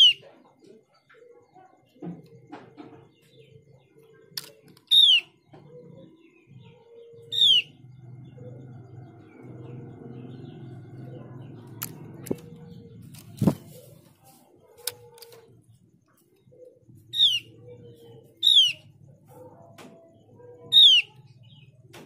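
Female Javan grey-throated white-eye (opior jawa) giving short, sharp downward-slurred calls, six in all with long gaps between them. This is the female's call to a male, used as a lure to set males singing. A few sharp knocks and wing flutters from the bird moving about the cage fall in the middle.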